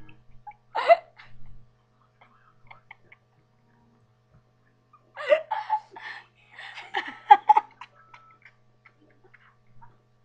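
A girl giggling and laughing in short bursts: one brief burst about a second in, then a longer run of laughter from about five to eight seconds in.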